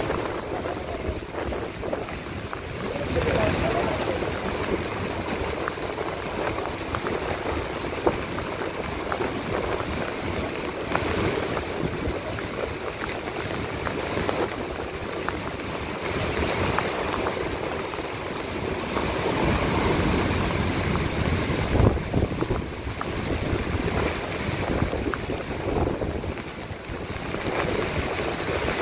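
Monsoon storm at the sea's edge: strong wind gusting over the microphone, mixed with heavy rain and breaking surf. A steady rush that swells and eases, strongest about twenty seconds in.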